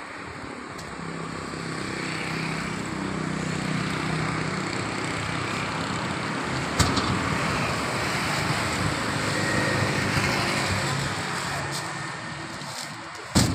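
A motor vehicle going past, its engine and tyre noise swelling over several seconds, staying loud through the middle and fading again. There is a sharp knock about seven seconds in and a heavier knock near the end.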